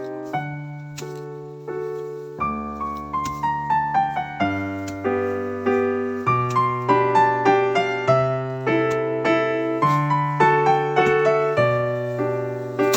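Solo piano background music: a melody of struck notes over a low bass line, with a run of falling notes about a third of the way in.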